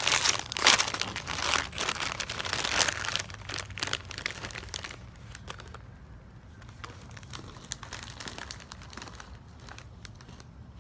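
Flamin' Hot Cheetos snack bag crinkling loudly as it is handled and opened, easing after about four seconds into fainter scattered crackles.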